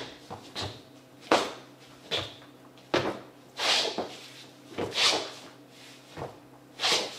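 Sneaker soles stepping and sliding on a smooth dance floor through running man glide steps: sharp footfalls alternating with longer hissing scuffs, about one a second.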